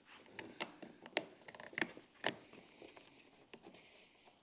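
Replacement mirror cover being worked and pressed into place: a string of sharp clicks and taps, the loudest about one and two seconds in.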